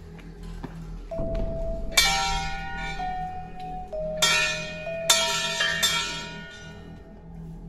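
Cluster of hanging brass Hindu temple bells rung by hand, three sharp strikes about two, four and five seconds in. Each strike rings on with several overlapping tones that fade slowly.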